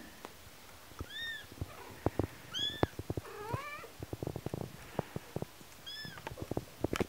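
Very young kitten mewing: about four short, high-pitched mews, one of them a quick rising run of little cries, with soft clicks and rustles of movement in between.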